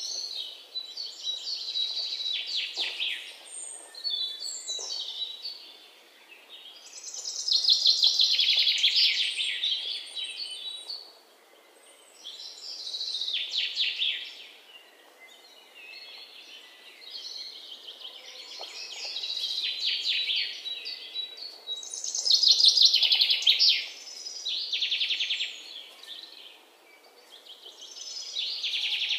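A songbird singing in repeated phrases of rapid, high trills, each phrase lasting one to three seconds and coming every few seconds.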